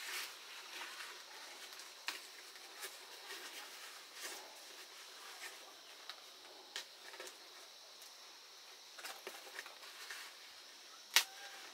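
Large green leaves rustling and crinkling as they are folded and pinned together with thin bamboo splints into a leaf plate, with scattered small clicks and a sharper click near the end.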